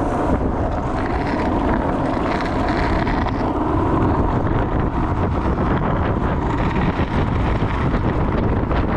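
Steady wind buffeting the microphone over the rumble of freebord wheels rolling fast on asphalt, with small clicks from the road surface.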